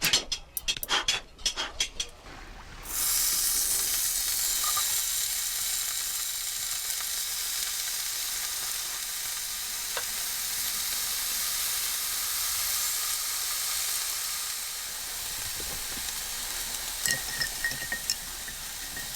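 A run of sharp clicks, then food sizzling steadily in a hot pan, starting suddenly about three seconds in, with a few small crackles near the end.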